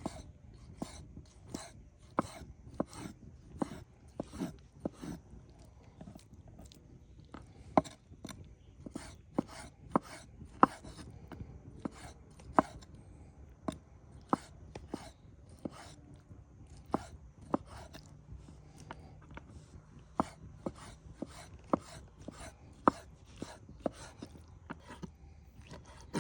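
A knife chopping food on a wooden cutting board: sharp knocks at an uneven pace of about one to two a second, with short pauses between runs.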